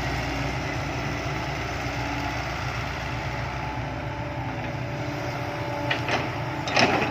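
Vehicle engine running steadily with a low drone, with a few sharp clatters near the end.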